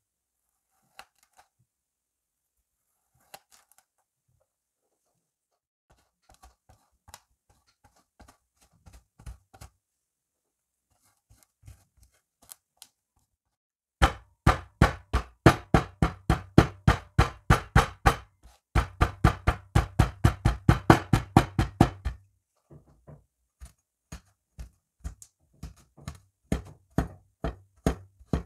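A steel hatchet blade chopping through kinetic sand onto a hard tabletop. Faint scattered taps at first, then from about halfway a fast, loud run of sharp knocks, about three a second, with a short break, and slower, softer chops near the end.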